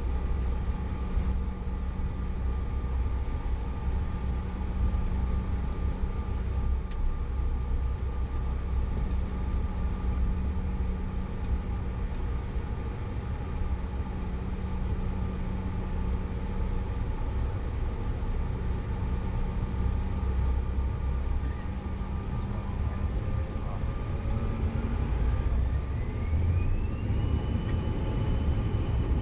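Cabin sound of a Bombardier CRJ900 with its General Electric CF34 turbofans running: a steady low rumble and engine hum. Near the end an engine whine rises in pitch and then levels off as the engines spool up.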